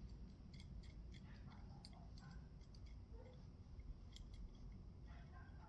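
Faint, scattered small metallic clicks from a hand-held antenna mounting bracket and clamp being worked loose, over a low background rumble.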